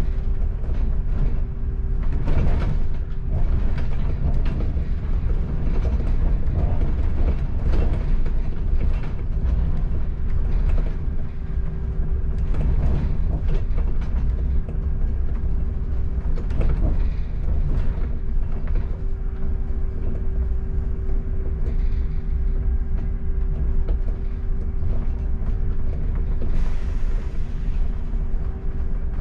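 Interior of a moving double-decker bus: a steady low engine and road rumble with a constant hum, while the bus body and fittings rattle and creak in frequent short clicks and knocks. A brief hiss near the end.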